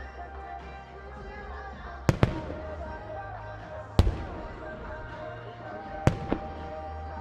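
Aerial fireworks shells bursting: five sharp booms, a quick pair about two seconds in, a single one about four seconds in, and another pair about six seconds in. They sound over a pop song with vocals played for the pyromusical show.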